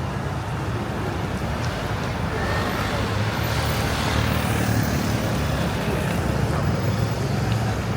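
Steady city street traffic with a low rumble, and a vehicle passing by that swells from about two and a half seconds in and fades after about six seconds.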